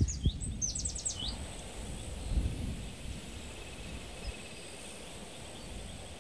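A small bird gives a quick run of high chirps, falling in pitch and lasting about a second, at the start, over a low, steady background rumble. A faint, high, insect-like trill follows in the middle.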